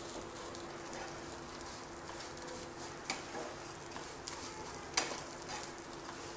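A spatula stirring and turning vermicelli as it roasts in ghee in a frying pan: a soft, steady sizzle with a few sharp clicks of the spatula against the pan, the loudest about five seconds in. A faint steady hum runs underneath.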